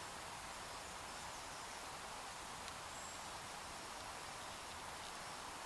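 Quiet, steady outdoor forest ambience: an even background hiss, with a brief high chirp about three seconds in.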